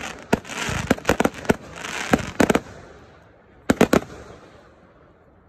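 Aerial fireworks firing and bursting: a rapid run of sharp bangs with crackling between them, a quick cluster of bangs near four seconds in, then the sound dies away.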